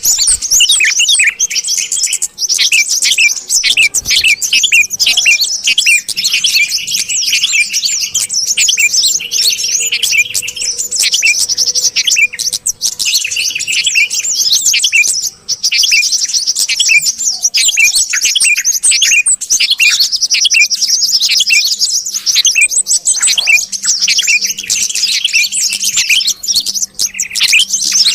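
Yellow-vented bulbuls and sooty-headed bulbuls calling together in a dense, continuous stream of rapid chirps and chattering trills.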